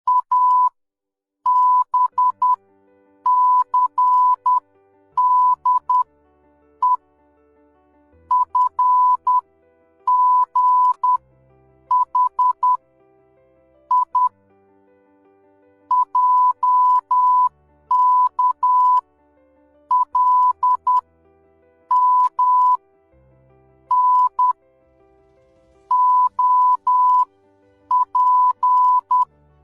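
Morse code (CW) sent as a steady, high-pitched beep keyed on and off in short and long elements, grouped into characters with short pauses between them.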